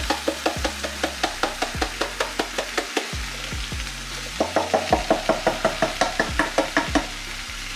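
A spoon clicking and scraping rapidly against a pot while diced tomatoes are stirred into the chili, about five strikes a second in two runs with a short pause about three seconds in. Background music plays underneath.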